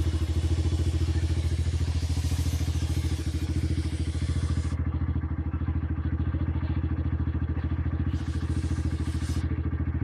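Honda CG 150 Fan motorcycle's single-cylinder four-stroke engine idling steadily, its exhaust giving a fast, even rumbling beat.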